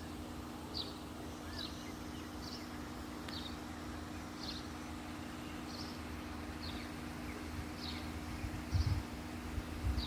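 Small insect giving short high chirps about once a second, over a steady low hum. A few low rumbling thumps come near the end.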